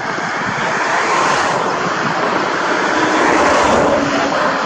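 Jet engines of a Boeing 757-200 airliner rolling out on the runway just after touchdown: a steady, loud rush of engine noise that grows louder over the first three seconds or so, then eases a little.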